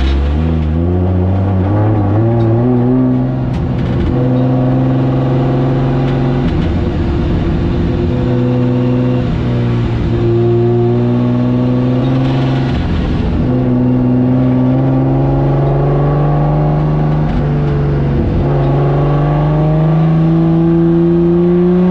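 Drift car's engine revving hard on track, its pitch holding high and steady for long stretches, dropping briefly every few seconds and climbing again near the end.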